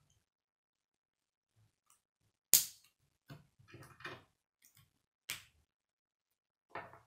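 Plastic K'nex rods and connectors being snapped together by hand: irregular sharp clicks and snaps, the sharpest about two and a half seconds in, a quick run of them soon after, and a few more near the end.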